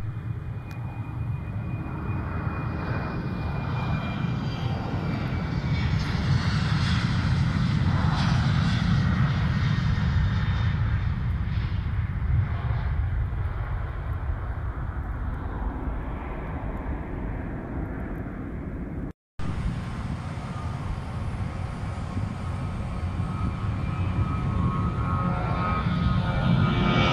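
Jet airliner engines at takeoff power as the aircraft rolls down the runway and climbs away, a deep rumble swelling and then slowly fading. After a brief cut, a Ryanair Boeing 737's jet engines run loud on the runway with a whining tone, growing louder near the end.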